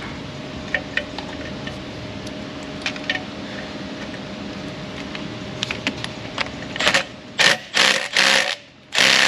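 Small metallic clicks over a steady hum, then, near the end, a quarter-inch power tool run in several short bursts and one longer one on the EGR valve's nuts, which are not coming loose.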